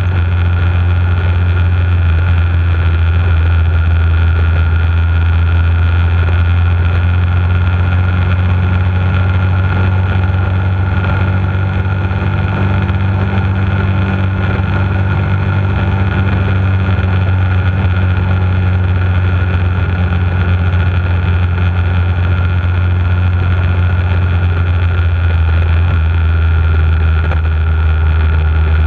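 Bullit Hunt 125 motorcycle's single-cylinder four-stroke engine running at steady cruising revs on the move, a constant low drone.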